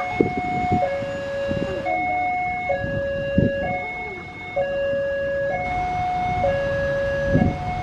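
Railway level-crossing warning alarm sounding its electronic two-tone chime, switching back and forth between a higher and a lower note, each held a little under a second. It sounds over the low running of waiting road traffic.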